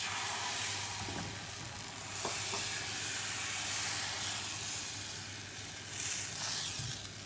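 Appam batter sizzling as it hits a hot non-stick pan and is swirled around the pan's sides. The sizzle starts suddenly and eases off slightly near the end.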